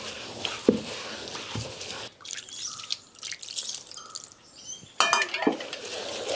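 Water dripping and splattering as it is sprinkled by hand onto rice and grated coconut in a traditional stone wet grinder. About five seconds in comes a sudden louder clatter, then a steady scraping rasp as grinding begins.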